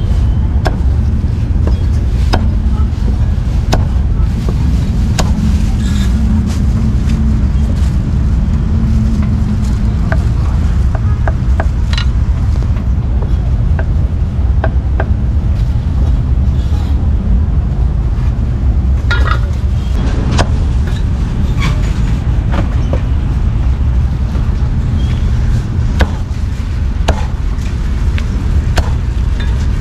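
A heavy meat cleaver knocks against a thick round wooden chopping block in scattered, uneven strikes as it cuts through braised chicken feet and offal. Under it runs the loudest sound, a steady low rumble of street traffic and motorbikes.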